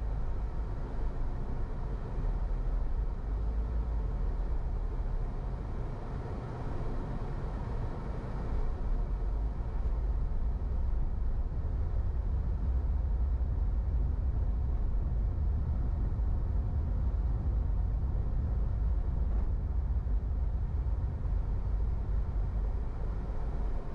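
Car driving, with a steady low rumble of engine and tyre noise.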